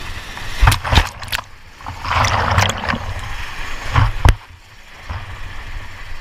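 Whitewater rapid rushing and splashing over an inflatable raft as it is swamped and a rafter goes into the water, with a surge of water about two seconds in. Sharp knocks sound in pairs, about a second in and again about four seconds in.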